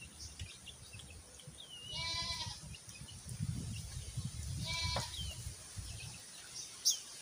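A goat bleats twice: a quavering call about two seconds in and a shorter one near five seconds.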